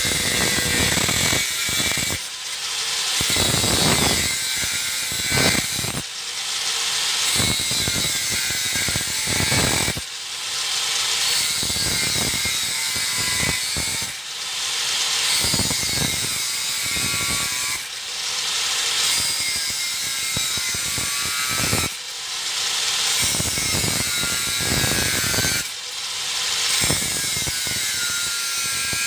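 Angle grinder fitted with a 125 mm, 0.8 mm thin type 42 cut-off wheel, cutting through metal: a continuous grinding whine that dips briefly about every four seconds.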